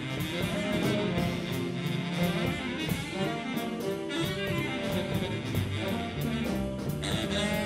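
Live big band jazz: a baritone saxophone solo over the rhythm section, with a steady ride cymbal beat.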